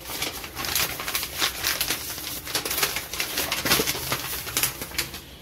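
Paper sheets and a plastic blister pack being handled: irregular rustling and crinkling.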